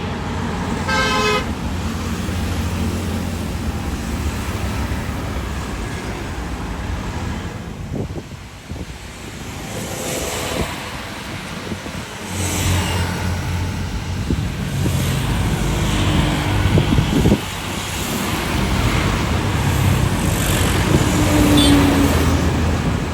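Steady low rumble of road traffic with vehicle horns honking briefly, once about a second in and again near the end.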